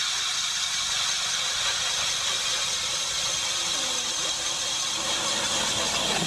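20-volt DeWalt cordless drill running steadily under load, turning a Jiffy ice auger that cuts through lake ice, with a steady high whine and grinding that cuts off right at the end.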